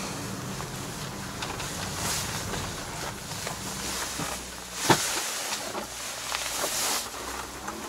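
Kei truck engine and road noise heard from inside the cab while driving, a steady low hum, with a sharp knock about five seconds in.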